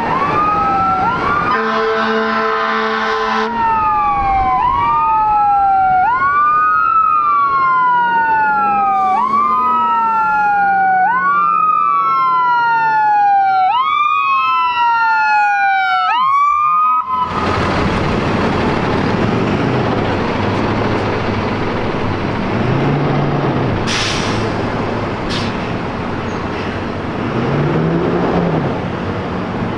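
A fire-department rescue ambulance sounding two horn blasts, then its electronic siren, each sweep rising quickly and falling back slowly about every two seconds. About 17 seconds in, the siren gives way abruptly to the rig's engine and tyre noise, with no siren.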